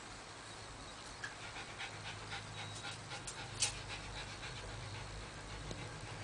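Small Chihuahua–Jack Russell terrier mix dog panting, a quick run of short breaths starting about a second in and lasting a few seconds, with one sharper click in the middle.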